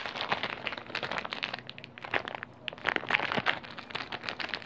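Plastic wrapper of a pack of Cream-O sandwich cookies crinkling in the hands as it is opened, a continuous run of small crackles.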